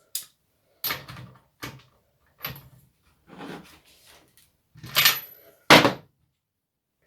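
Irregular knocks and clatters of tools and small engine parts being handled on a workbench, about eight in all, the two loudest near the end.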